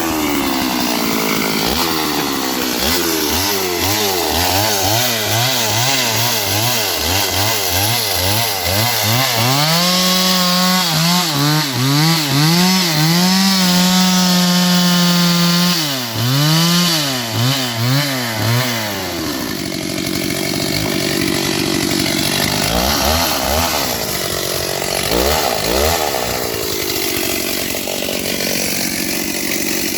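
Stihl 038 AV two-stroke chainsaw engine revved in quick repeated blips, then held at full speed for several seconds, blipped again, and let drop back to a steady idle with two short revs near the end: an engine test run.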